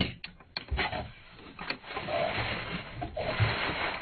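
Packaging being handled: a few light knocks, then a run of rustling and scraping as a box of boxed figures is rummaged through.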